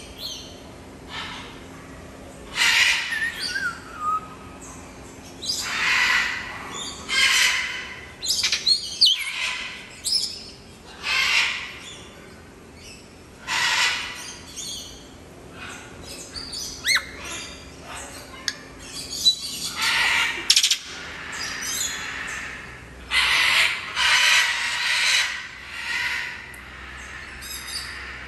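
African grey parrot squawking: a dozen or so harsh, loud calls, each under a second, at uneven intervals, with a falling whistle about three seconds in.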